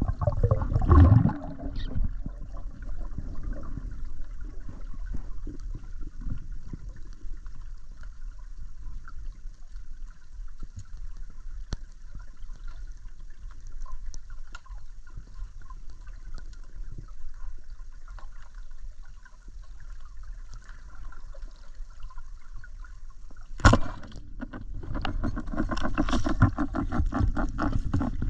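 Underwater sound picked up by an action camera in its waterproof housing: muffled water noise with faint crackling, after a loud rush of water in the first second or so. A single sharp knock comes near the end, followed by louder rushing and bubbling water.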